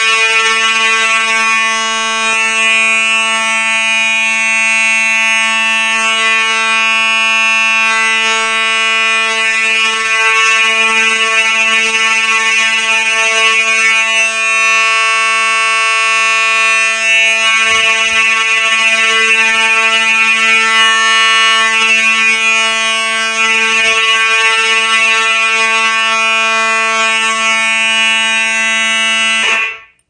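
Simplex electromechanical fire alarm horn sounding a steady, unbroken buzzing tone on continuous coding after a pull station activation, incredibly loud. It cuts off suddenly near the end as the alarm is silenced at the panel.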